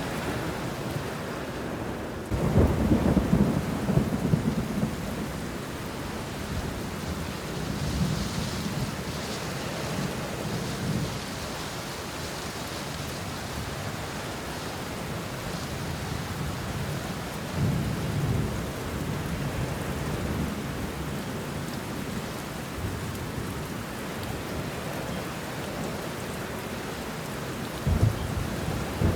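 Steady rain falling on banana leaves and bushes, with rolls of thunder: the loudest a few seconds in, weaker ones about a third of the way through and past the middle, and a short one near the end.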